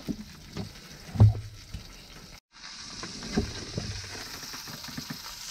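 Trout frying in a pan of hot oil, a steady sizzle that starts after a cut about two and a half seconds in. Before it, a few scattered knocks, the loudest a little over a second in.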